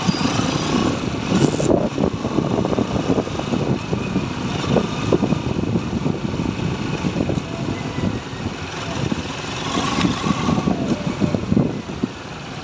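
Motorcycle engine running steadily while riding, with irregular wind noise buffeting the microphone.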